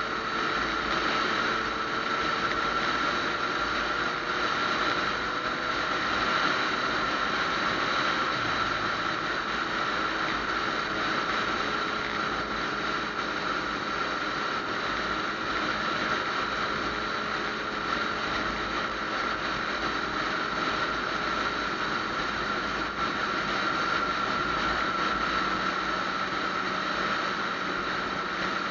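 Yamaha FZ-09 motorcycle cruising at a steady speed: a steady rush of wind and road noise with the engine running evenly underneath.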